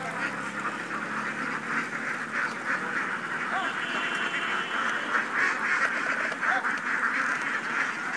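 A flock of ducks quacking continuously, many short calls overlapping into a dense, steady chatter.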